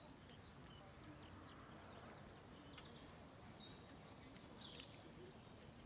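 Near silence: faint open-air ambience, with a few faint, short, high chirps in the second half.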